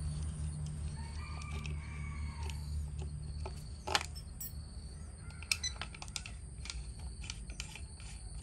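Engine covers being fitted onto a Shindaiwa S231 backpack trimmer's small two-stroke engine: scattered plastic clicks and knocks, the sharpest about four seconds in. A rooster crows faintly in the background.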